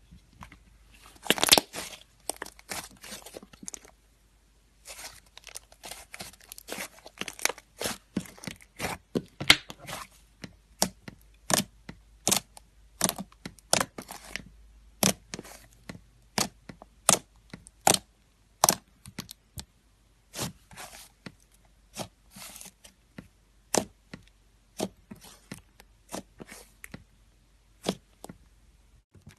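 Slime being squeezed and worked by hand, giving a run of sharp pops and crackles at irregular intervals, with a brief pause about four seconds in.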